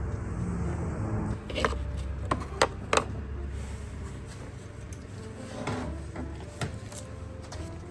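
Several sharp clicks and knocks, four close together in the first three seconds and a few lighter ones later, over a low steady rumble.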